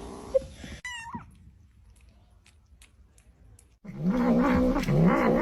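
A cat gives a short, gliding cry about a second in, then near the end breaks into a loud, drawn-out, wavering low yowl.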